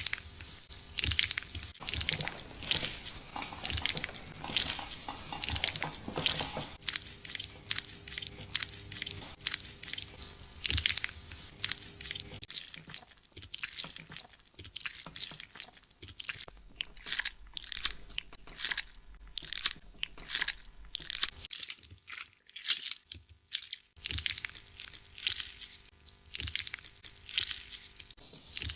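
Fingers scratching and rubbing through hair and scalp during a scalp-care wash: a run of crisp crunching strokes, several a second, sparser and quieter for a stretch in the middle.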